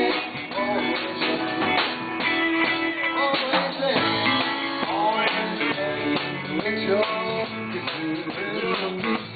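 Live band playing an instrumental passage led by guitar, with no singing.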